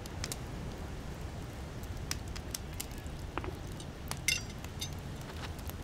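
Sparse light metallic clinks of iron tongs and crackles of a small forge fire, over a steady low wash of surf. One clink about four seconds in rings briefly.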